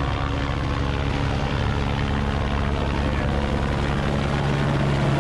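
Helicopter hovering: a steady rotor and engine drone that grows a little louder near the end.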